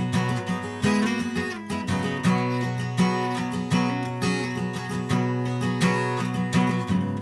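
Acoustic guitar strumming chords in a steady rhythm, an instrumental passage between sung verses of a song.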